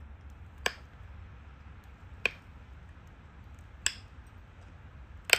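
Four sharp clicks about a second and a half apart, the last the loudest: flakes snapping off a stone Dalton point as it is flaked.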